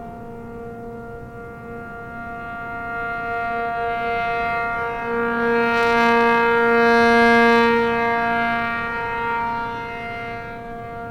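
ACA P-50 rotating outdoor warning siren sounding its steady alert, a chord of two held notes (466 and 700 Hz). As the horn turns at 3 RPM, the sound swells to its loudest about seven seconds in, then fades as the horn turns away.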